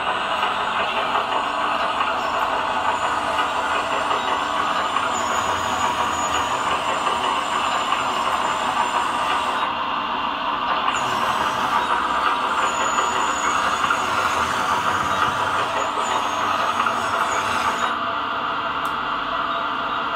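Scale RC Volvo EC480D excavator model running with its sound module on: a steady, unbroken engine-like running noise, with a faint high whine coming and going.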